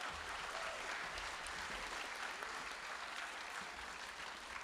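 Audience applauding, a steady round of clapping in a hall.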